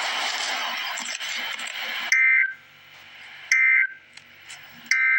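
Emergency Alert System end-of-message signal: three short, shrill bursts of warbling two-tone digital data, evenly spaced, marking the end of the alert. They are preceded by about two seconds of loud hiss-like noise.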